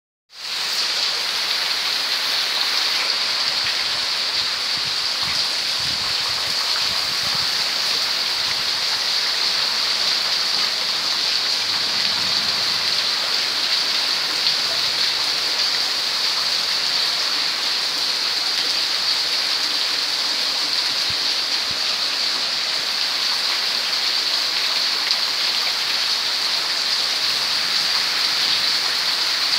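Heavy rain falling steadily, with water pouring off the edges of clay-tile roofs.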